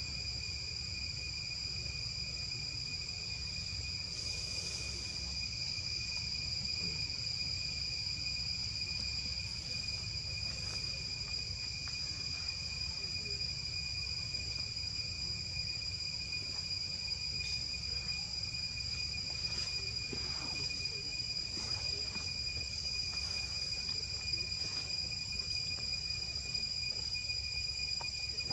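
Steady high-pitched insect drone, one unbroken whine with a lower second tone, over a low rumble. A few faint short ticks and rustles come and go, one about four seconds in and a cluster in the last third.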